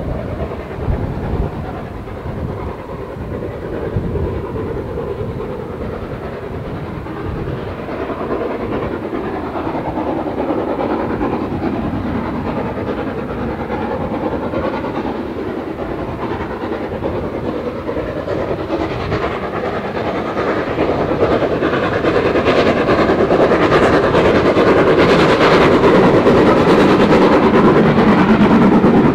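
LSWR S15 4-6-0 No. 506, a steam locomotive, working a passenger train, growing steadily louder as it approaches. It is loudest over the last several seconds as the engine and its coaches run past.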